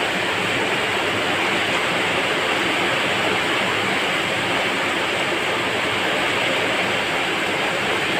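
Steady, even rushing background noise, like heavy rain or a fan, with no distinct knocks, tones or voices.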